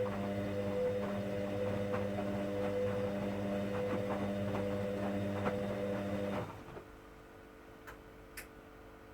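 Hoover washing machine's drum motor running with a steady hum and faint ticking, then stopping suddenly about six and a half seconds in. Two light clicks follow about half a second apart.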